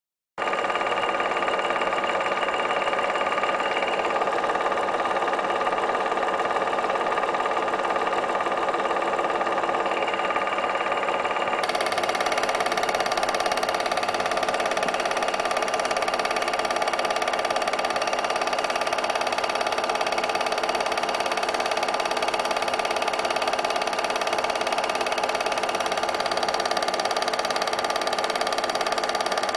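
Film projector running: a steady mechanical whir and rapid clatter that starts abruptly just under half a second in, turning brighter and hissier about twelve seconds in.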